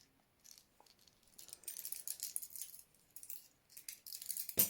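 Keys on a key ring and suspension clip jingling and clinking softly as they are handled, with a sharper click near the end.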